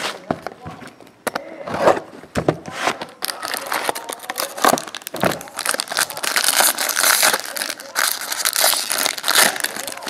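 Foil-lined wrapper of a trading-card pack crinkling as it is handled and torn open, with dense crackling that is heaviest in the last few seconds.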